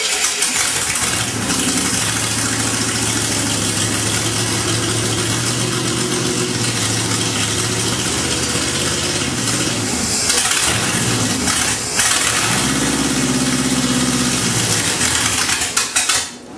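Oldsmobile Rocket V8 on an engine stand running unmuffled. It revs up about a second in, sags briefly about ten seconds in, revs up again, and cuts out near the end. It is hard to keep running.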